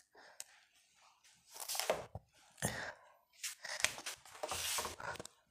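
Rustling, scratching noises in irregular bursts over a few seconds.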